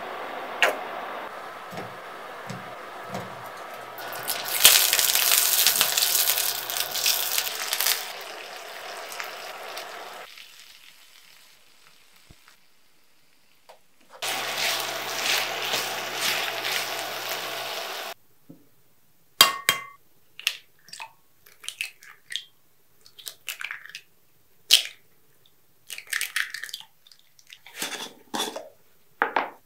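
Kitchen tap running into a sink, louder for a few seconds in the middle of the first stretch, then shut off; it runs again for about four seconds. After that comes a string of short clinks and knocks of dishes and utensils being handled.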